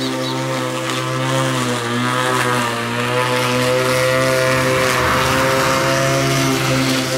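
Ruris RXi 3000 cordless battery lawn mower running and cutting grass, its motor and blade giving a steady whine. The pitch sags briefly a couple of times as the cutting load rises, then picks back up.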